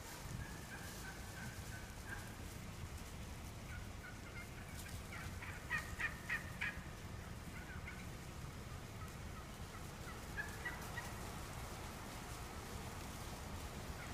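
Flock of wild turkeys calling: scattered short calls, with a quick run of four loud notes about six seconds in and two more a little before eleven seconds.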